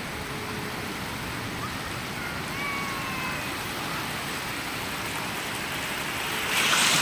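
Sea surf on a sandy beach: a steady wash of breaking waves, swelling to a louder hiss near the end as a wave's foam rushes in close.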